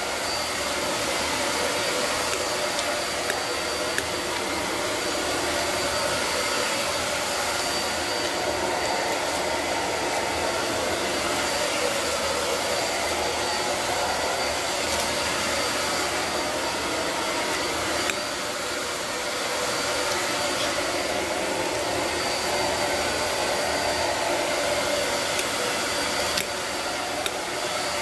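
Steady whooshing of an electric fan heater running, with a few faint clicks.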